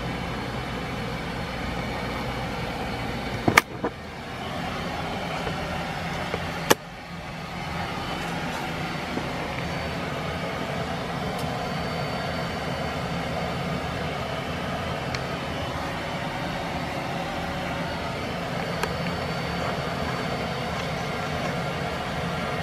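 1986 NuTone Proline 48-inch four-blade industrial ceiling fan running with a steady hum. Two sharp clicks come about three and a half and nearly seven seconds in, each followed by a short dip in the sound.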